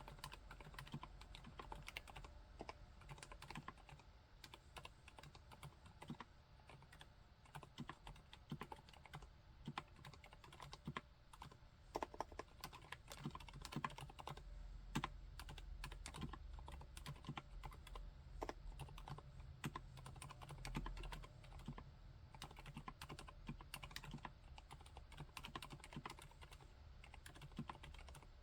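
Continuous typing on a MONOKEI Standard mechanical keyboard with Cherry MX Silent Red linear switches: a quiet, muffled stream of soft, irregular keystrokes.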